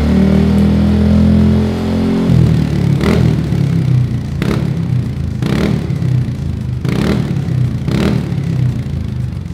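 Yamaha NMAX 155's single-cylinder engine running through a K'Race stainless full-system aftermarket exhaust. Its revs are held up and then drop back to idle a little over two seconds in, with sharp clicks about once a second after that.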